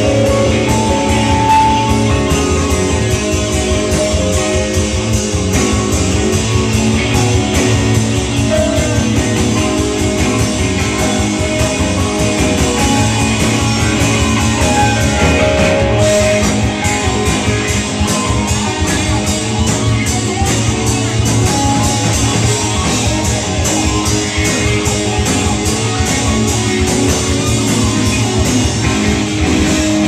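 Live rock band playing loudly: electric guitar, drums and keyboard.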